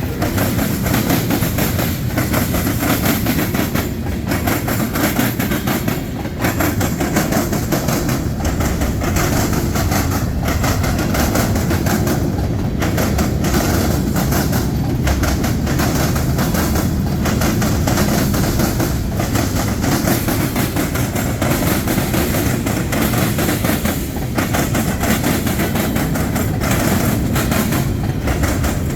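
Norfolk Southern freight train rolling past, its cars giving a steady rumble of steel wheels on rail with continual clicking over the rail joints.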